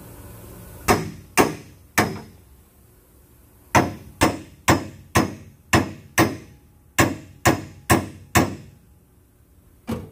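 Short-handled sledgehammer striking the steel roll-cage tubing and the car's sheet-metal body, knocking the bar into position. Three blows, a pause of a couple of seconds, then about ten more at roughly two a second, each ringing briefly, and a last blow near the end.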